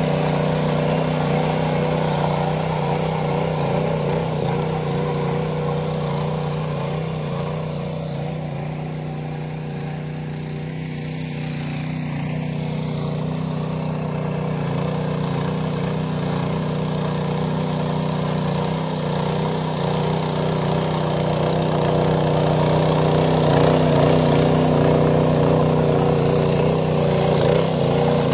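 Small single-cylinder petrol engine of a 7 hp power weeder running steadily under load while its tines till soil. It grows fainter around the middle as the machine moves away, then louder again as it comes back.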